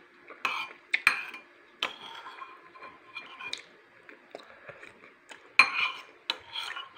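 Cutlery clinking and scraping against a ceramic plate while eating, in a series of short, irregular clatters, loudest about five and a half seconds in.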